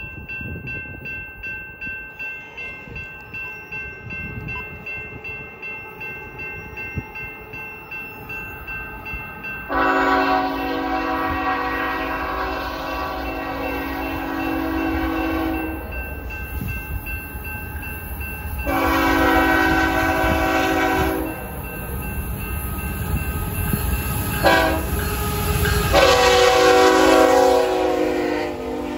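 A freight train running, with a steady whine and a rhythmic beat about twice a second. Then its diesel locomotive's air horn sounds long, long, short, long, the pattern blown when approaching a grade crossing.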